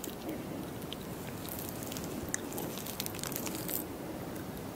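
Metal fork cutting into a soft glazed cake and lifting out a piece: faint scattered clicks and moist squishing close to the microphone, as in ASMR eating audio.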